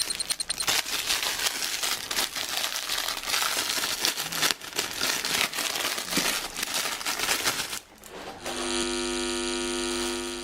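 Plastic packaging crinkling and rustling with many small crackles, as in opening a Lego set. About eight and a half seconds in it gives way to a steady buzzy electronic tone that lasts about two seconds and then stops.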